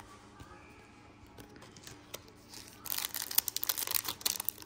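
An NBA Hoops trading-card pack's foil wrapper crinkling and tearing as it is pulled open by hand, starting about three seconds in after a few soft card-handling ticks.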